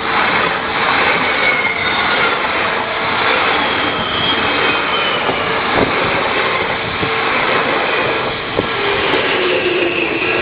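An Odakyu electric train passes close by through a level crossing: a sudden loud rush of wheel and running noise, with a couple of sharp clacks and a falling whine near the end. The crossing's warning bell keeps ringing under it for the first part.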